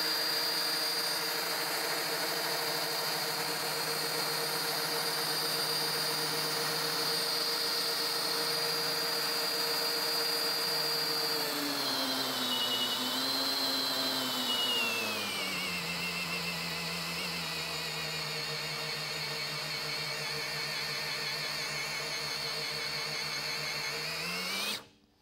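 Milwaukee M18 Fuel 2904 brushless drill in first gear, running under a dynamometer's brake load. Its whine holds a steady pitch, then drops in two steps about halfway through as the load rises and the chuck slows. It labours at the lower pitch and cuts off suddenly near the end.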